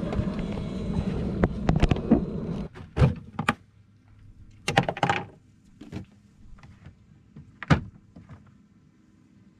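Wind rushing on the microphone with a few knocks, cutting off about two and a half seconds in. Then scattered separate knocks and thuds of gear being handled on a small skiff's deck while a cast net is made ready.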